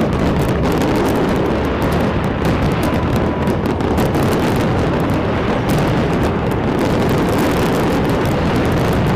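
Dense, non-stop barrage of fireworks in a grand finale: many bursts and crackles packed so close that they merge into one continuous rumble.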